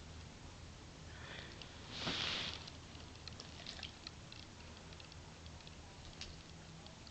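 Weimaraner sniffing and licking a small kitten: one loud breathy sniff about two seconds in, among faint soft clicks.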